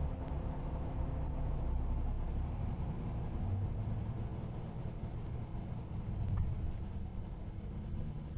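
Hyundai Kona driving slowly on a paved road: a steady low engine and tyre rumble, picked up by a camera mounted on the car's hood.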